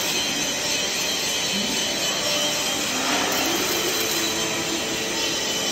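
Steady hiss of an oxy-fuel heating torch flame played on a steel I-beam, the heat used to straighten welding distortion.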